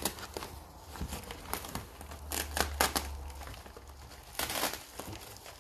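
Bubble wrap and brown packing paper crinkling and rustling in irregular bursts as hands unwrap and shift packed plants in a cardboard box.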